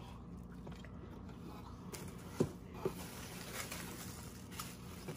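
Faint rustling of bubble wrap and plastic packaging as the parts of a vegetable chopper are handled, with two short clicks about halfway through.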